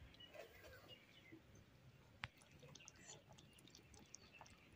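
Near silence: faint background with scattered light ticks and one short sharp click about two seconds in.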